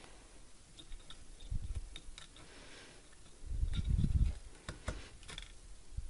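Light clicks and taps of wires and plastic being handled at a microwave oven's relay and circuit board, scattered irregularly, with low handling thumps, the loudest a little past halfway.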